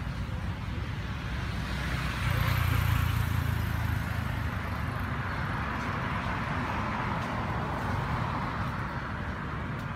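Steady outdoor background noise: a low rumble with a hiss that swells about two seconds in and slowly eases off.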